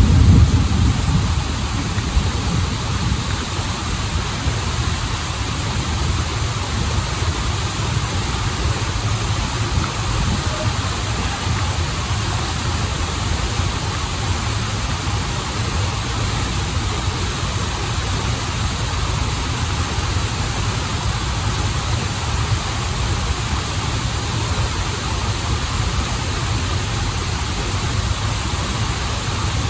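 Waterfall and stream water rushing steadily, a deep low rumble under a wide hiss, louder for the first second and then even.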